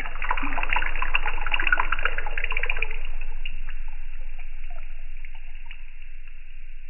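A vibrating tuning fork dipped into a bowl of water, its prongs spattering the surface with a dense crackling splash. The splash is loudest about one to two seconds in and then slowly dies away, with a faint steady tone from the fork beneath it at first.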